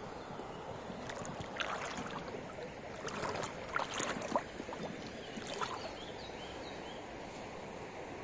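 Shallow river water running over pebbles, a steady rush, with a spell of louder splashing and trickling in the middle.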